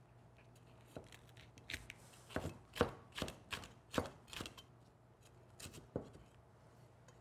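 Chinese cleaver slicing green chili peppers into strips on a wooden cutting board: a run of sharp knocks of the blade on the board, irregular, about two or three a second. They start about a second in and stop about a second before the end.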